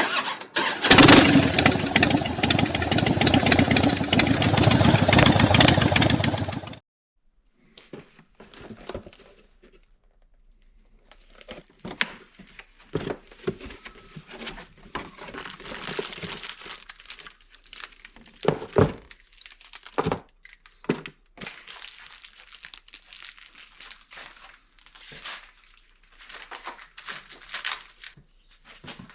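A loud, dense noise fills about the first seven seconds and cuts off suddenly. After it come scattered rustling, clicks and sharp knocks of parts and tools being handled during a motorcycle saddlebag light install.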